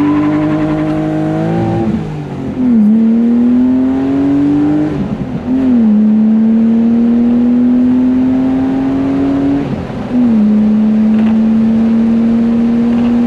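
BMW E36 M3's straight-six, heard from inside the cabin, pulling hard from a clutch-drop launch with the rear tyres spinning. The engine note climbs through the gears, dropping back in pitch at upshifts about two, five and ten seconds in.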